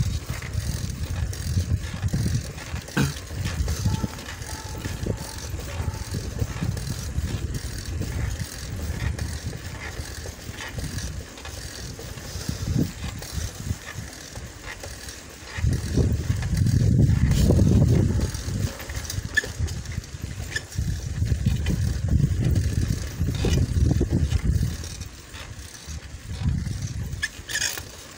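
Wind and riding rumble buffeting the microphone of a phone carried on a moving bicycle. It comes in low gusts, loudest a little past halfway through.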